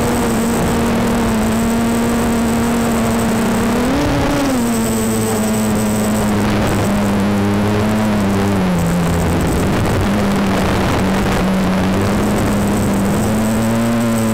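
Micro quadcopter's Turnigy 1811 brushless outrunner motors and propellers humming in flight. The pitch rises briefly about four seconds in, drops lower through the middle as the throttle eases, and climbs back near the end.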